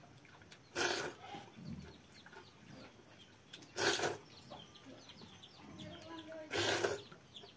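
Three loud wet slurps as handfuls of watery fermented rice (basi pakhala) are sucked from the fingers, about three seconds apart. Chickens cluck and small birds chirp faintly in the background.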